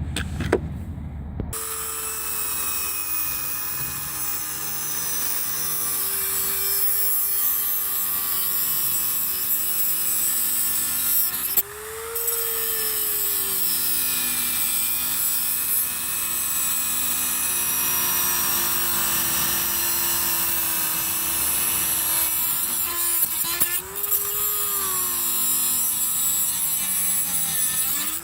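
Dremel-type rotary tool running and cutting a slot into the head of a security bolt holding an engine ECU's protective cage, so that a screwdriver can undo it. A steady grinding hiss over the motor whine, whose pitch rises and sags a few times as the load on the cut changes.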